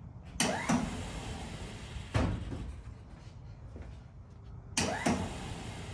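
Five sharp knocks or clunks: two close together near the start, one about two seconds in, and two more close together near the end.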